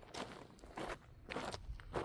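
Footsteps of a person walking at an even pace on outdoor ground, a step about every half second.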